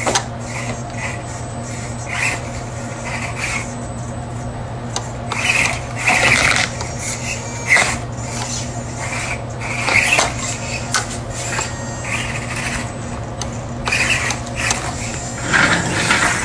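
Miniature RC rock crawler (1/24-scale RC4WD Trail Finder 2) climbing over rocks and gravel: a steady low hum under repeated rasping, scraping bursts as its drivetrain works and its tyres grind against rock.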